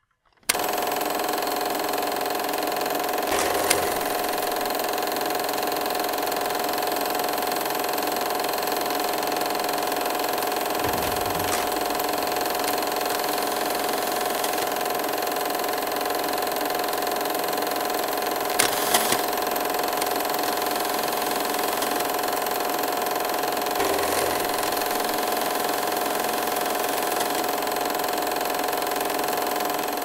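Film projector sound effect: a steady mechanical running with a constant hum, starting suddenly and carrying a few louder clicks scattered through.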